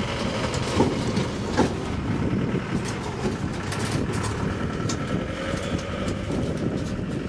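Tourist road train, a wheeled mini train, running along the street, heard from aboard one of its open carriages: a steady engine drone with road and carriage rumble. Two sharp knocks come about a second in and again about half a second later.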